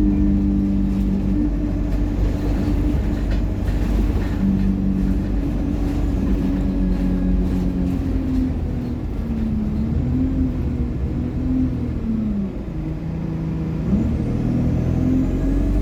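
ADL Enviro200 single-deck bus running, its Allison automatic gearbox and turbocharger whining over the engine drone. The whine holds steady, sags about halfway through as the bus slows, then climbs again near the end as it pulls away.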